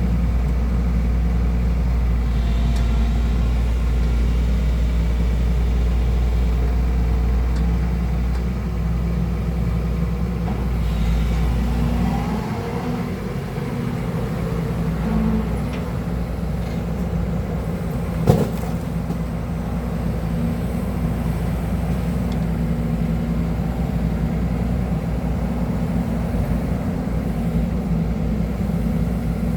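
Hydraulic excavator's diesel engine running steadily during a digging test, its deep rumble easing about twelve seconds in. A single sharp clank about eighteen seconds in is the loudest sound.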